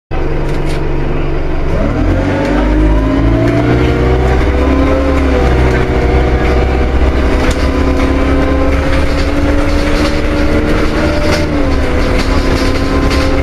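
Alexander Dennis Enviro200 single-deck bus heard from inside the saloon, pulling away and accelerating: a low engine drone under a whine that rises in pitch and drops back twice, about five seconds in and again near the end, as the automatic gearbox shifts up. This whine is the unusual engine sound that only a few Enviro200s were known for.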